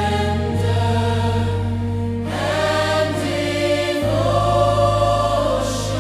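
Gospel worship music: a choir singing long held notes over sustained bass and chords, the chord changing about every two seconds.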